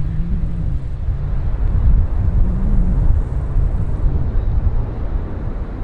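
Jet airliner rolling out on the runway after landing, heard from a distance as a steady low rumble of engine and rolling noise.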